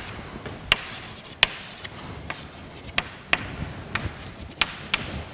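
Chalk writing on a blackboard: about half a dozen sharp, irregular taps as the chalk strikes the board.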